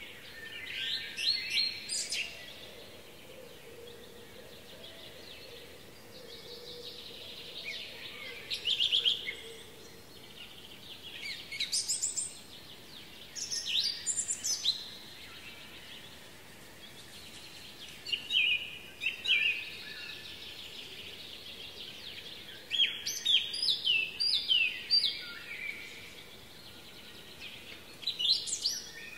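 Songbirds singing: short phrases of quick high chirps and trills every few seconds, with the busiest run of notes about three-quarters of the way through, over a faint steady high hiss.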